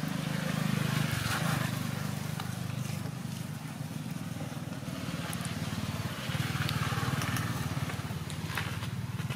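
An engine running steadily, a low pulsing hum that swells again about six seconds in, with a few faint clicks over it.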